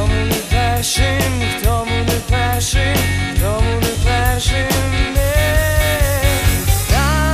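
A band's song playing: a sung vocal melody over a steady drum beat and low bass notes.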